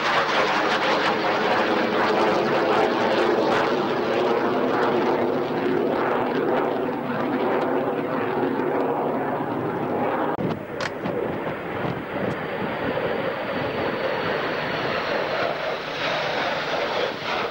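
Jet fighter flying a display overhead: loud, continuous jet engine noise that eases a little in the second half. A short click about eleven seconds in.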